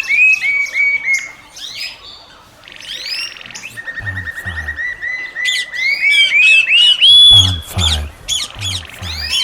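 Birds chirping and squawking in long runs of quick repeated whistled notes that climb in pitch, with deep croaking pulses underneath at times.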